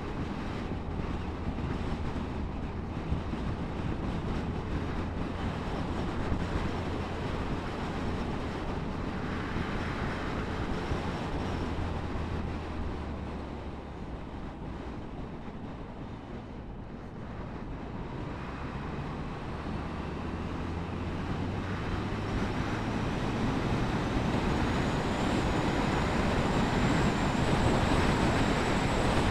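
Suzuki GSF1250 Bandit's inline-four engine running under way, with wind and road noise. The engine eases off a little about halfway through, then the sound builds steadily toward the end as the bike picks up speed.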